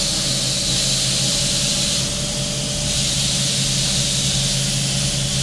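Steady hiss of compressed air from a lifted truck's Kelderman air ride suspension, over a low steady hum.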